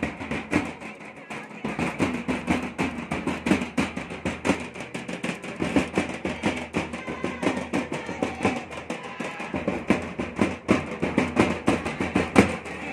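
A large stick-beaten cylindrical drum played live in a fast, steady rhythm for a line dance, with voices over the beat.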